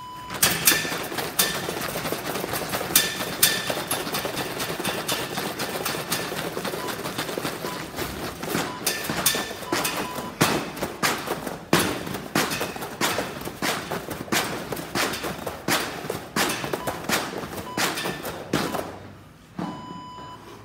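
Heavy battle ropes whipped in rapid waves, slapping the floor mat over and over with a rushing swish, then stopping about nineteen seconds in. A short electronic beep sounds at the very start and again just after the ropes stop.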